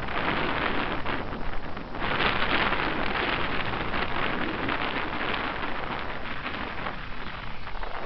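Wind over the microphone and wind-blown, choppy lake water: a steady rushing, hissing noise that swells about two seconds in and eases off near the end.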